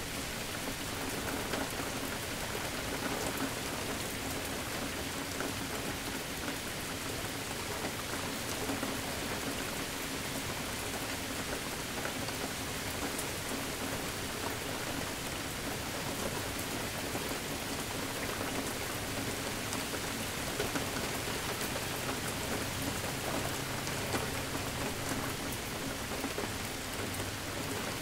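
Steady rain falling and pattering on surfaces, with a low rumble of distant thunder in the second half.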